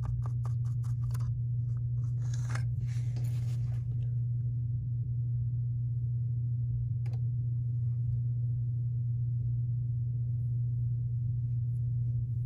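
A soft brush clicking quickly against the inside of a thin plastic cup as it stirs a watery acrylic wash, then bristles scratching as the wash is brushed along a strip of balsa wood, with one sharp tap about seven seconds in. A steady low hum runs under it all and is the loudest sound.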